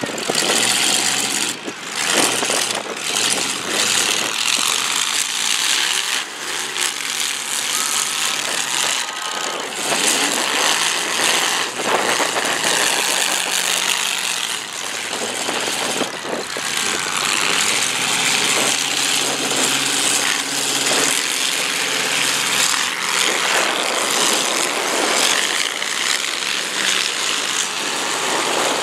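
Demolition derby car engines running and revving hard, with scattered crunching impacts as the cars ram one another.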